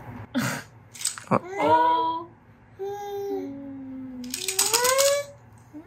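Infants babbling in drawn-out vocal sounds, one rising near the end. A hard plastic baby rattle toy clicks and clatters a few times in the first second and a half as it is grabbed and shaken.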